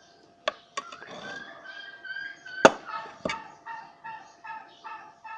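Several sharp knocks, the loudest about halfway through, then an animal call repeated evenly about three times a second, like a bird clucking.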